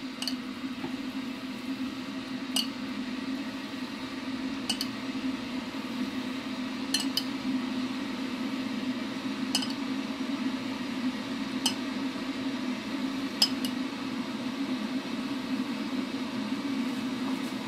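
Metal spoon clinking lightly against a frying pan about every two seconds while sauce is spooned over chicken drumsticks, over a steady low hum.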